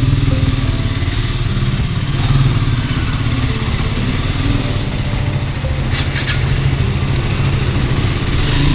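Single-cylinder motorcycle engine running steadily, at an even, moderate pace.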